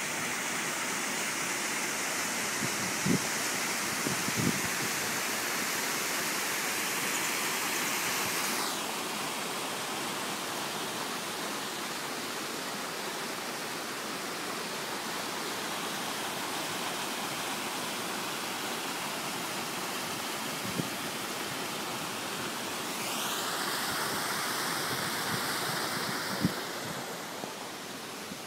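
Water rushing over rocks in a small cascade into a pool, a steady hiss that thins about nine seconds in and grows again near the end. A few soft knocks are heard over it.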